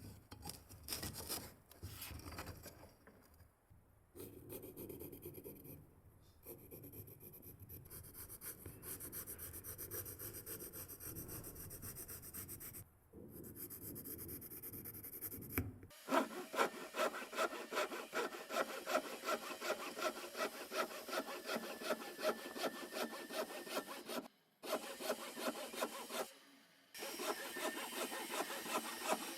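Back-and-forth strokes of a hand tool cutting or shaping wood. The strokes are uneven at first, then settle into a steady rhythm of about two to three strokes a second about halfway through, broken by a few short gaps.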